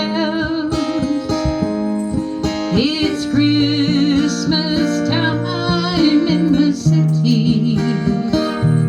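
Song with acoustic guitar strumming and a singing voice holding long notes with vibrato, near the start and again in the middle.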